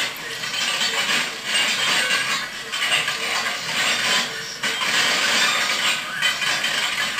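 A shovel and a metal bar scraping through embers, charcoal and soil and dragging steel plates in a hangi fire pit, in uneven rasping strokes.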